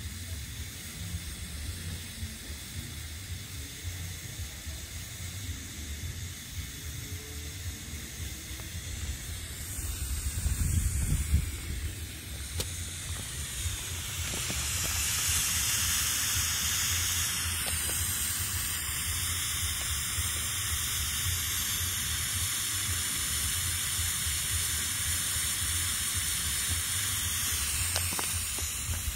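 Firework smoke bombs hissing steadily as they burn and pour out smoke; the hiss grows louder and brighter about halfway through. A brief low rumble comes a few seconds before that.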